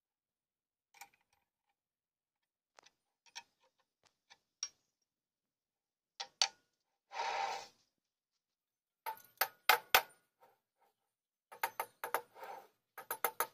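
Scattered sharp clicks and taps from handling a turned wooden blank clamped to a lathe faceplate, with a short scrape about seven seconds in. Quicker runs of metal clicks follow near the end, as a wrench works the faceplate's clamping bolts.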